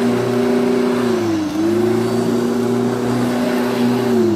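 Corded electric rotary lawn mower running with a steady motor whine, dipping briefly in pitch twice, about a second and a half in and again at the end, then picking back up.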